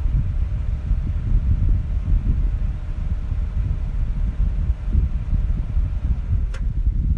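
Wind buffeting the microphone: a gusty, uneven low rumble, with a single faint click about six and a half seconds in.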